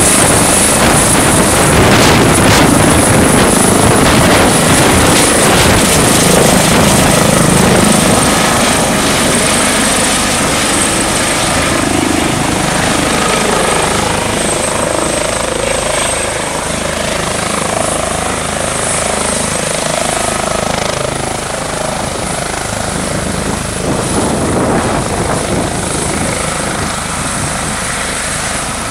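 Airbus H145 (EC145 T2) twin-turbine rescue helicopter lifting off and hovering: steady rotor noise with a high, constant whine. It is loudest at first and eases off a little from about eight seconds in as the helicopter moves away toward its pad.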